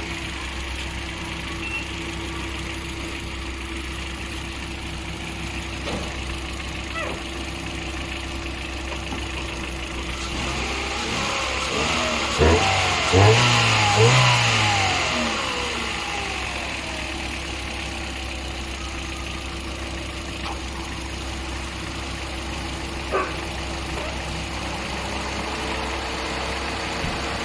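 Hyundai Accent engine idling steadily, then revved in a few quick blips about halfway through before settling back to idle. It is running on newly fitted spark plugs, and the mechanic thinks the misfire has gone.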